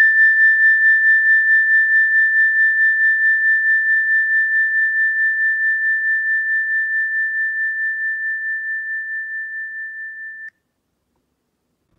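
A single high, pure ringing tone with a slight steady pulsing, slowly fading, the lingering ring of one strike. It cuts off abruptly about ten and a half seconds in.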